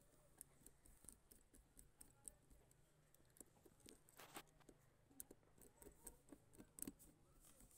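Faint, irregular clicks and ticks of a screwdriver turning small screws into a scooter carburettor's metal body.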